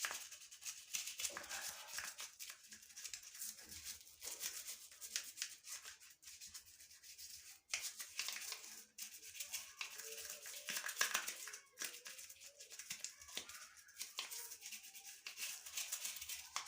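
A toothbrush scrubbing a plastic electric shower head part in quick, irregular rasping strokes.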